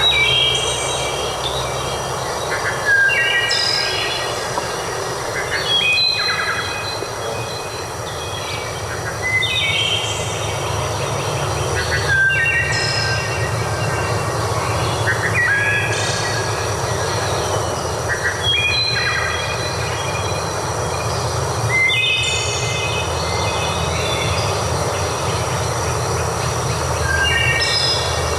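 A songbird repeating a short song of clear, stepped whistled notes about every three seconds, over a steady rushing background noise.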